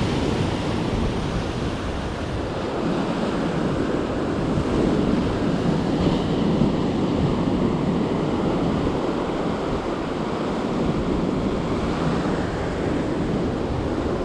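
Ocean surf washing onto a beach in a steady, unbroken rush, with wind rumbling on the microphone.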